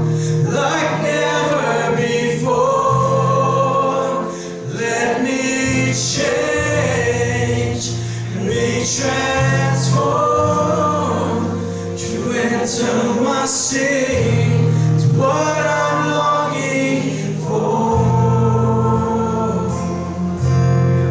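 Live worship band playing a slow gospel song: sung vocals over long sustained bass notes, with a few cymbal crashes.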